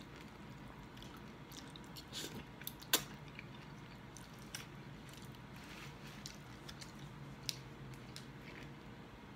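Close-up eating sounds of spaghetti being chewed: faint chewing and wet mouth clicks, with one sharp click about three seconds in. Near the end come small clicks as a plastic drink-bottle cap is twisted open.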